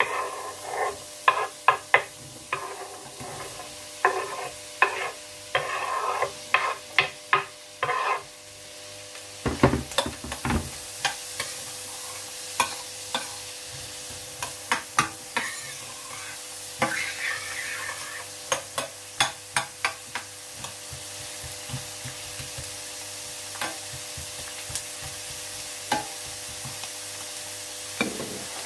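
Chopped onions and garlic being scraped off a wooden chopping board with a knife into hot oil and butter in a stainless steel roasting pan, with a run of sharp knife taps and scrapes. About ten seconds in there is a low thump. The onions then fry with a steady sizzle, while a spoon stirs them and clicks against the metal pan.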